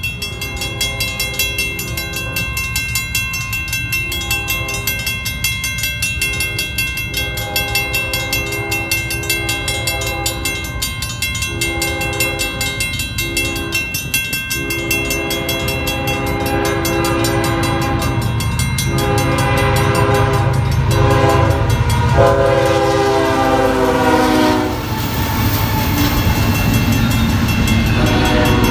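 Grade-crossing bell ringing steadily while an approaching freight train's locomotive air horn sounds a series of long chime blasts, the last ending about 25 seconds in. A low locomotive rumble grows underneath, and near the end the double-stack container cars roll through the crossing with a clickety-clack of wheels.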